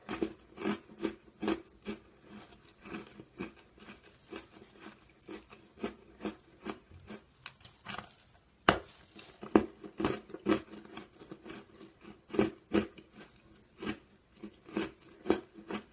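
Close chewing and crunching of aerated concrete block, short crisp crunches about two or three a second, with one sharper crack near the middle.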